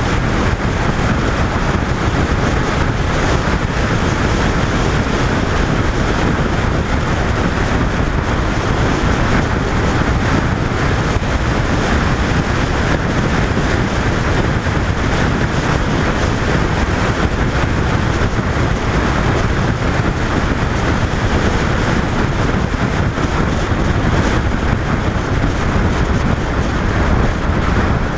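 Steady, loud wind rush over the microphone of a camera mounted on a motorcycle riding at speed, mixed with the bike's running noise.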